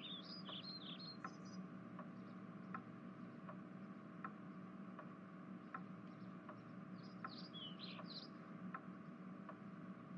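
Faint background ambience: a clock ticking steadily, about four ticks every three seconds, over a low steady hum. Birds chirp briefly at the start and again about seven seconds in.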